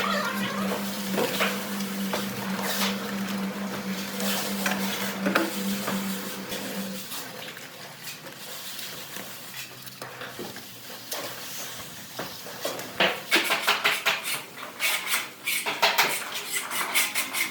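Metal hand tools clinking and scraping in scattered knocks. A steady hum stops partway through, and near the end comes a quick run of scrapes and clinks.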